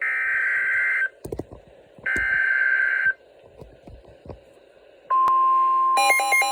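Emergency Alert System header: two one-second bursts of screeching digital data tones a second apart, with faint clicks between. About five seconds in a steady alert tone begins, and near the end a pulsing multi-tone alarm pattern joins it, marking the start of a tornado warning.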